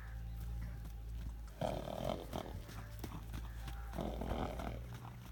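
Horse's hooves clip-clopping as it moves, with scattered short knocks over a steady low hum, and two louder short noises about a second and a half and four seconds in.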